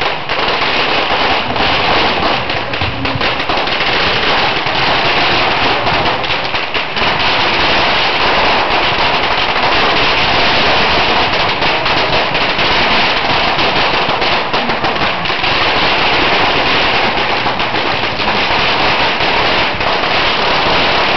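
Firecrackers and fireworks going off on a firework bull (torito) frame: a dense, unbroken rattle of rapid bangs and crackling sparks.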